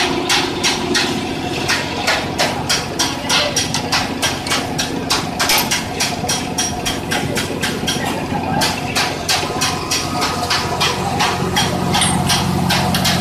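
An electric pipe threading machine is running, with a steady motor hum under a rapid, even clicking. The clicking thins out near the end while the hum grows louder.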